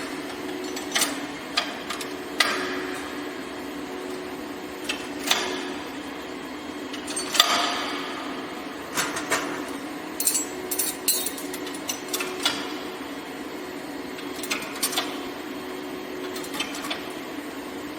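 Irregular metal clanks and knocks, some ringing briefly, over a steady machine hum, typical of steel rebar being handled and fed through a rebar cage welding machine.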